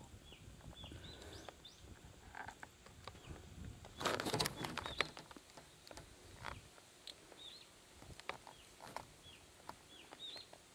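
Outdoor ambience of a small bird chirping repeatedly in short, high, down-hooked calls, with scattered clicks. A loud rustling burst about four seconds in is the loudest sound.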